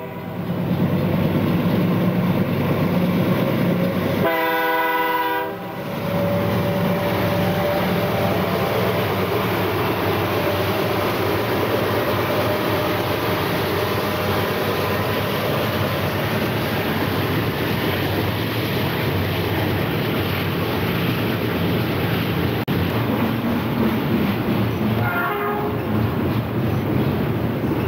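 Diesel freight locomotive horn sounding one blast about four seconds in as the train nears a grade crossing, over the steady rumble of the train. Double-stack container cars then roll past with a continuous clatter of wheels on rail, and a fainter horn-like tone comes briefly near the end.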